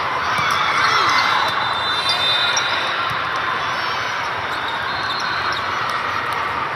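Gym sounds of an indoor volleyball match: ball contacts and players' shoes on the court over a steady crowd hubbub.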